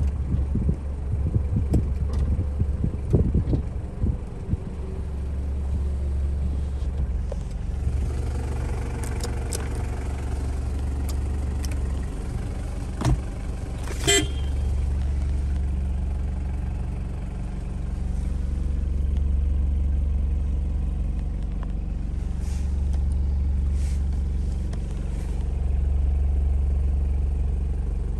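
Toyota Hilux Surf's 1KZ-TE 3.0-litre turbo-diesel engine idling steadily, heard from inside the cabin. The horn gives one short toot about halfway through, and a few knocks sound in the first few seconds.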